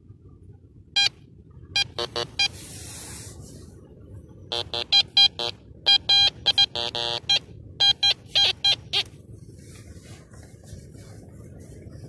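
TX-850 metal detector giving short repeated beeps, singly and in quick runs, as its coil is passed back and forth over a shallow target in the sand. One run about seven seconds in sounds at a lower pitch. The signal comes from a junk target, a bottle cap. A brief rustle of sand is heard about three seconds in.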